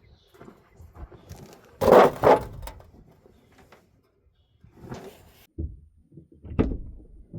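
Hand tools and sockets being gathered up: a run of clunks and metal clatter, the loudest clatter about two seconds in, then a few single knocks.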